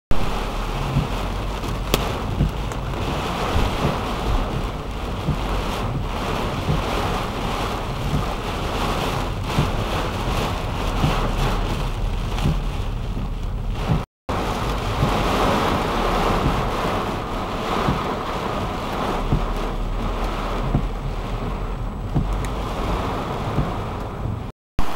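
Heavy monsoon rain beating on a car's roof and windshield, a dense, loud, steady hiss with a low rumble of wind underneath. It breaks off for a moment about halfway through, then carries on.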